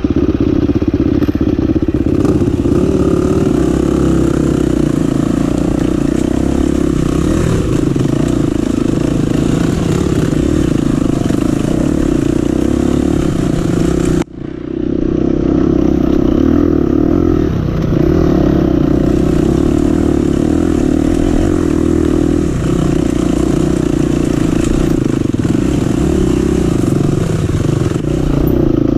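Dirt bike engine running steadily under load close to the microphone, pulling up a steep, muddy trail climb. The sound breaks off abruptly for a moment about halfway through, then picks up again.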